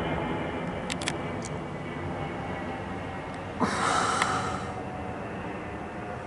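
Airbus A321-231 airliner's twin IAE V2500 turbofan engines as it descends overhead: a steady jet rumble with faint whining tones. About three and a half seconds in, a short breathy rush lasting about a second stands out as the loudest sound, with a couple of faint clicks near the one-second mark.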